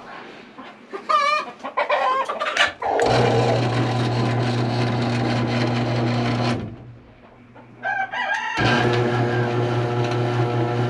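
Chickens cluck and call in the first few seconds. Then a Craftsman garage door opener's motor hums steadily for about three and a half seconds, driving the chain that works the coop door. It stops, and a couple of seconds later starts running again.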